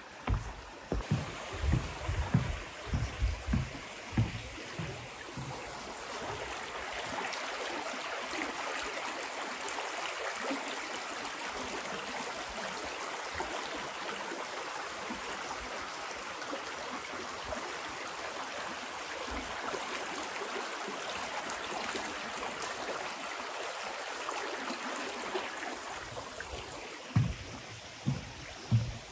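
Footsteps knocking on a wooden boardwalk for the first few seconds, then a shallow forest stream running steadily over rocks. The footsteps on the boardwalk start again near the end.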